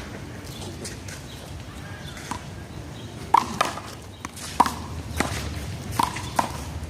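Rubber handball being hit by hand and smacking off the wall and pavement during a rally: about six sharp smacks, spaced roughly half a second to a second apart, in the second half.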